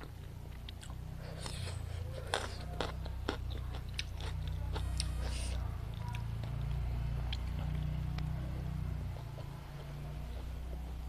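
Close-miked eating: chewing and biting, with many short wet mouth clicks and smacks over a steady low hum.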